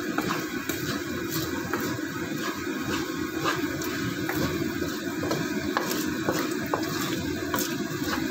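Coconut milk bubbling and sizzling as it cooks down in a pan to make latik, stirred with a wooden spatula, with frequent small pops and crackles over a steady low hum.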